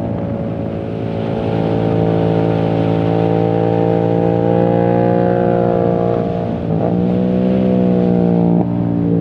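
2021 Yamaha MT-07's parallel-twin engine, breathing through a full titanium exhaust with no dB killer, running under load. Its pitch dips at the start and climbs over the next few seconds, then breaks briefly about two-thirds in and changes abruptly near the end.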